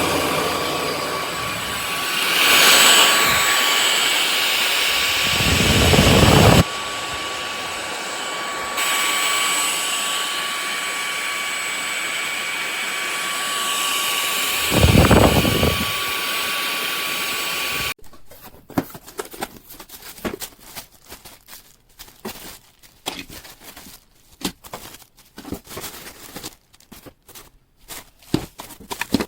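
Kermoky cordless stick vacuum running with a steady whine, with two louder surges and a sudden drop in level and then a rise partway through. It shuts off suddenly about 18 seconds in, leaving scattered clicks and rustling of handling.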